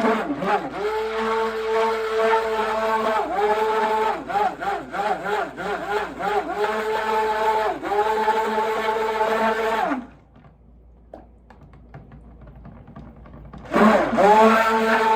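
Stick blender running in soap batter, its motor speed dipping and recovering several times as it is pulsed. It stops about ten seconds in and starts again about four seconds later.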